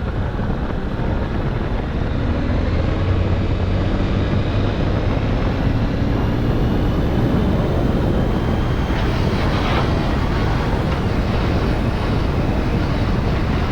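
Motorcycle riding along, with its engine running steadily under heavy wind rush over the microphone.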